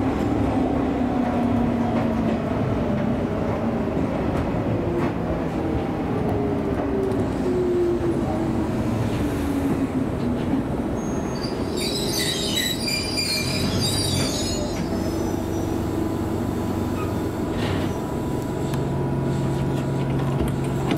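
Electric train running on the Izuhakone Railway Sunzu Line, heard from inside the car. Its motor whine falls in pitch as it slows, and a brief high-pitched wheel squeal comes about twelve seconds in.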